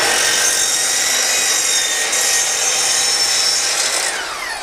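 Bosch GCM12SD 12-inch glide miter saw spinning up and cutting through a board in a test cut, its blade guard removed. About four seconds in the motor is released and the blade winds down with a falling whine.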